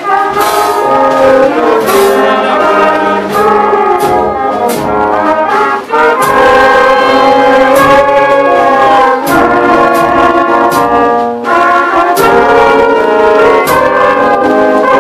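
Live wind band of trumpets, horns, saxophones, clarinets and tuba playing a tune together, loud, over a steady drum beat.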